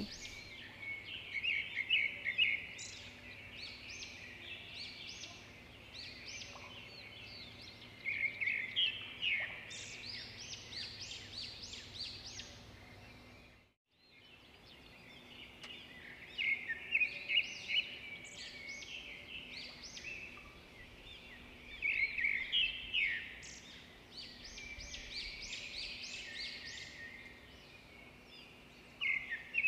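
Birds chirping and twittering in quick bursts of high calls. The birdsong fades out about halfway through and then starts again.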